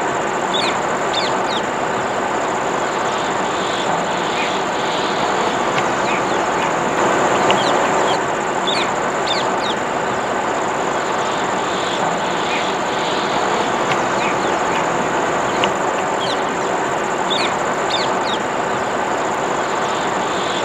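Birds chirping in short, high, falling notes that come in small clusters every few seconds, over a steady dense background noise and a constant high-pitched whine.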